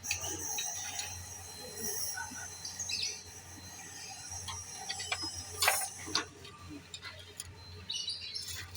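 Scattered metallic clicks and taps of tools and car parts being handled, over a steady low hum and a high hiss that stops about six seconds in.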